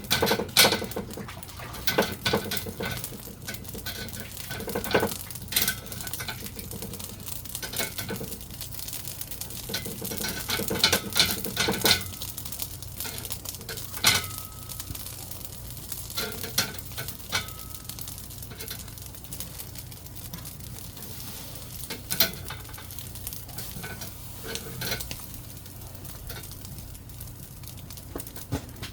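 Eel sizzling on a charcoal grill, a steady hiss broken by many sharp clicks and clinks of utensils and dishes.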